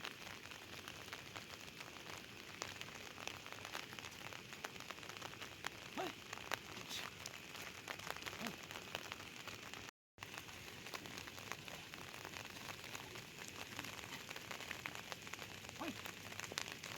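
Steady rain falling, heard as an even hiss thick with small drop ticks. The sound cuts out for a moment about ten seconds in.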